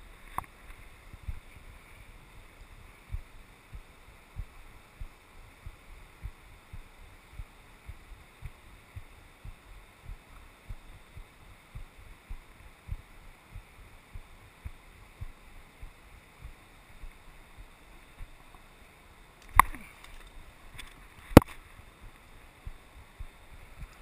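Mountain river water rushing steadily, with soft low handling knocks about two a second. Near the end come two sharp, loud knocks about two seconds apart.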